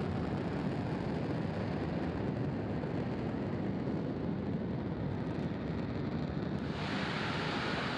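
Falcon 9 first stage's nine Merlin 1D engines during ascent, heard from the ground as a steady, deep noise without a break. About seven seconds in the sound turns brighter and hissier.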